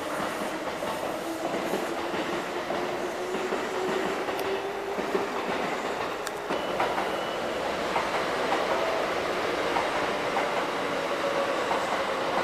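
Kintetsu electric trains moving through the station: wheels clattering over the rail joints under a steady rumble, with a faint electric-motor whine that rises slowly in pitch.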